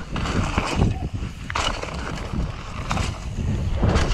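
Mountain bike rolling fast over a bumpy dirt trail: tyre noise on dirt with the bike rattling and knocking over the bumps.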